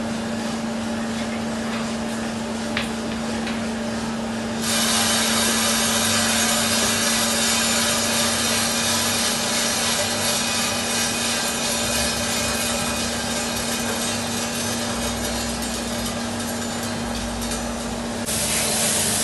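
Drum coffee roaster running with a steady motor hum. About five seconds in, a loud, dense rushing rattle starts and runs until near the end: roasted Robusta beans being dropped from the drum and churned in the cooling tray.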